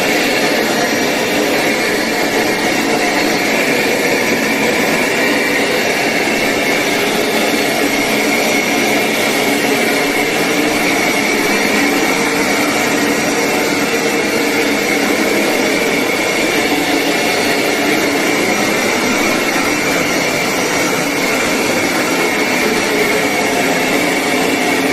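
Hoover PowerScrub XL carpet cleaner's suction motor running steadily, with a loud airy rush and a high whine.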